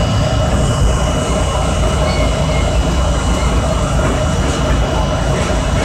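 Steady low rumble and hum aboard an R32 subway train, with a thin steady high whine over it.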